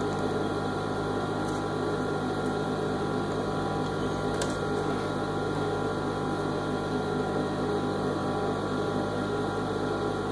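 Industrial lockstitch sewing machine's motor humming steadily, with no stitching rhythm.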